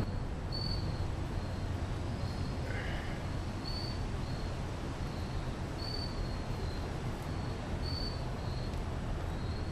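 Steady outdoor background noise with a short, high chirp that repeats in pairs about every two seconds.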